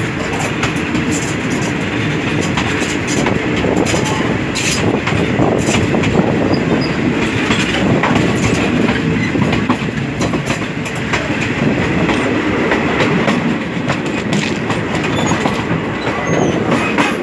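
Passenger train's wheels running on the rails, heard from an open carriage window: a steady loud rumble with irregular clicks and knocks as the wheels pass over rail joints.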